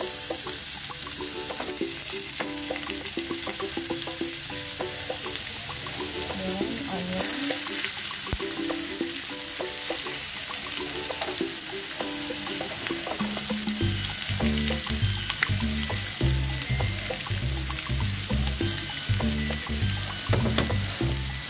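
Minced garlic and chopped red onion sizzling as they fry in hot bacon fat in a wok; the sizzle gets louder about seven seconds in. Background music plays over it, with a bass line coming in about fourteen seconds in.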